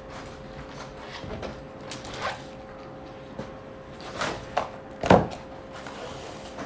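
Hand-stitching a sail: sailcloth rustling and waxed whipping twine rasping as the needle is pulled through thick webbing with pliers. A series of short, irregular scrapes and pulls, the loudest about five seconds in.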